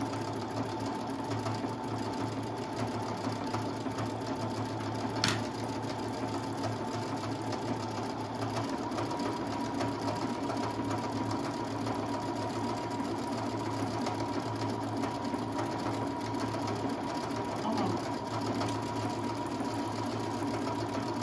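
Brother Innov-is 200 computerized sewing machine running continuously as it stitches, a steady mechanical hum with a thin whine that steps up slightly in pitch about eight seconds in. A single sharp click about five seconds in.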